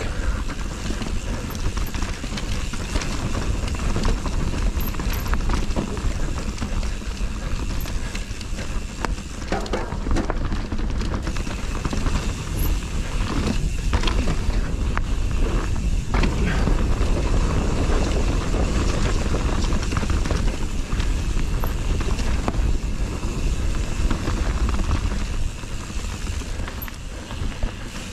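Wind rushing over the microphone and mountain bike tyres rumbling over a rough trail during a descent, with the bike clattering over bumps a few times.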